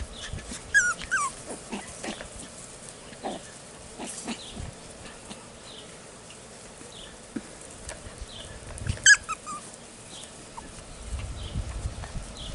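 Six-week-old cockapoo puppies yipping and squealing at play, with short scattered cries, a falling whine about a second in and one loud yip about nine seconds in.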